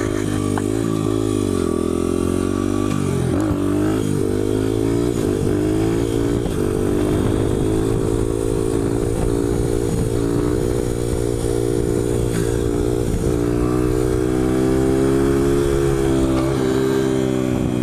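2001 Honda XR100R's single-cylinder four-stroke engine running under throttle through a wheelie, its pitch dipping and climbing again several times in the first few seconds, then held fairly steady through the second half.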